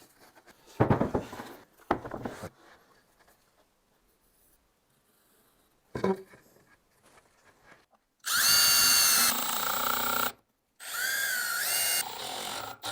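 Cordless drill driving screws into wood in two runs of about two seconds each, its motor whine dipping in pitch under load during the second run. A few knocks of wooden parts being handled come before.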